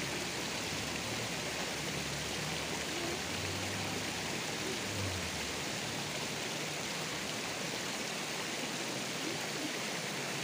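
River water flowing steadily, a continuous rushing, trickling sound.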